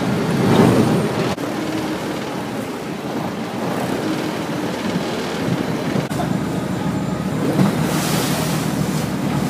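Motorboat engine running steadily under way, with water rushing past the hull and wind on the microphone. The wind hiss grows stronger near the end.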